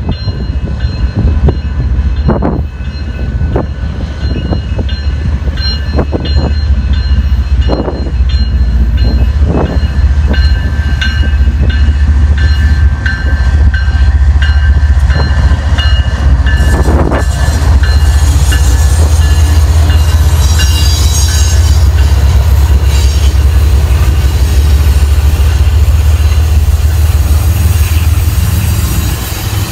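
BNSF track-geometry train led by a GE diesel locomotive approaching and passing close by. The locomotive's engine rumble grows louder over the first dozen seconds and peaks as it goes past. The inspection cars then roll by with steady wheel-on-rail noise and clatter.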